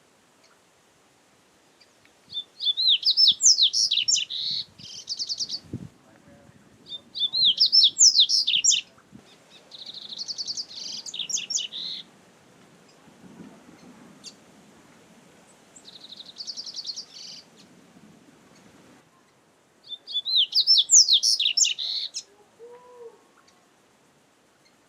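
Double-collared seedeater (coleiro) singing: about five high song phrases of quick sweeping whistles and buzzy trills, separated by pauses of a few seconds.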